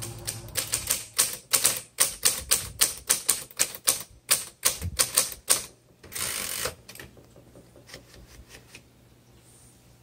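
Typewriter keys striking in a quick, even run of about three to four strokes a second as a line of text is typed. A longer half-second rasp comes about six seconds in, then a few faint clicks.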